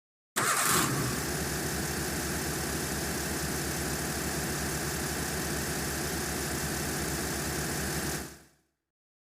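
A car engine firing up abruptly and settling straight into a steady idle with a fast, even low throb, then fading out near the end.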